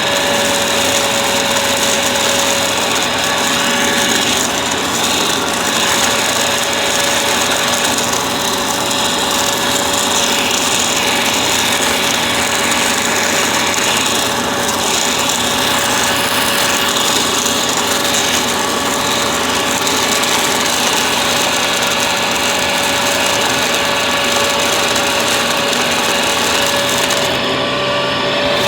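Bissell upright vacuum cleaner running steadily: a high motor whine over rushing air. The highest part of the hiss briefly cuts out near the end.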